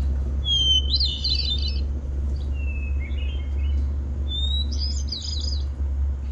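Recorded hermit thrush song played through a phone speaker: three phrases, each a long clear whistled note followed by a quick fluty flourish, each phrase starting at a different pitch. A steady low rumble runs underneath.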